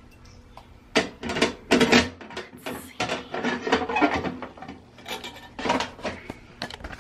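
A woman talking close to the microphone in short bursts with pauses, starting about a second in.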